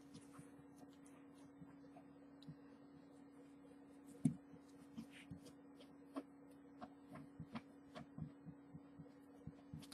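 Faint, steady low hum with scattered soft taps and scratches of a fabric pen working over a taped stencil on a t-shirt, one louder tap a little over four seconds in.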